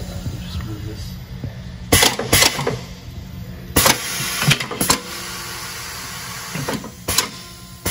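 Tire changer turning the wheel with a steady hum while the mount/demount head works the tire bead over the rim, with a series of sharp clunks and snaps of rubber and steel, two close together about two seconds in and more near four seconds and the end.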